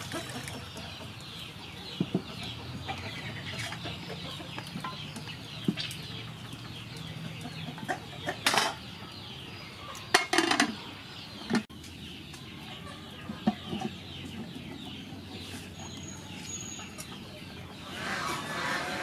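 Chickens clucking and cheeping in short falling chirps, over scattered knocks and clinks of an aluminium cooking pot and its lid being handled and put on.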